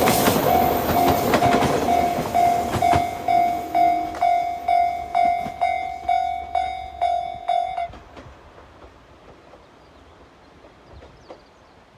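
A train runs past, its noise loud at first and fading over the first few seconds. Meanwhile an electronic Japanese level-crossing alarm rings in repeated dings about twice a second, then stops about eight seconds in, once the train has cleared the crossing. Only faint wind follows.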